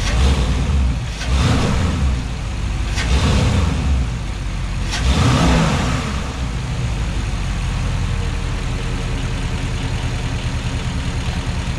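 Porsche Cayenne Turbo 957's twin-turbo 4.8-litre V8 on a cold engine, blipped up in revs four times over the first six seconds and settling each time, then idling steadily.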